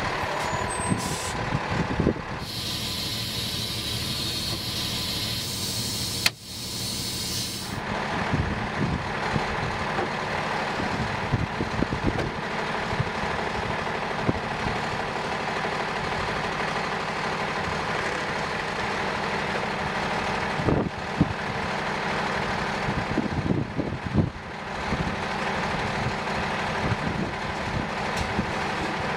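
A fire engine's diesel engine idles steadily. For about five seconds early on, a loud burst of compressed-air hiss from the truck's air brake system sounds over it, then cuts off. A few short knocks come later.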